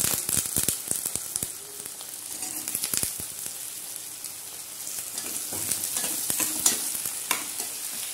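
Diced potatoes sizzling as they fry in hot mustard oil with onions in a stainless steel kadai, a steady hiss broken by many sharp clicks and scrapes of a metal spoon against the pan as they are stirred in.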